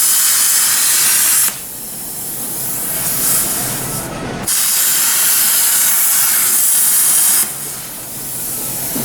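Plasma cutter cutting through the rusted sheet-steel quarter panel of a car body, a loud rushing hiss. There are two stretches of cutting: one ends about a second and a half in, and another runs from about four and a half to seven and a half seconds in. A softer hiss continues between and after them.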